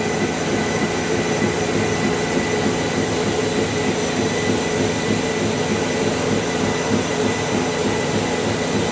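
Bowflex BXT216 treadmill's 4-horsepower drive motor and belt running fast, at about 11 to 12 mph, as the incline motor raises the deck. It makes a steady whirring hum with constant whining tones on top.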